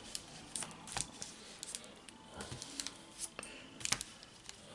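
Foil trading-card packets being handled and set down on a table while being sorted: faint, irregular crinkles and light taps, with a couple of slightly louder taps about a second in and near the end.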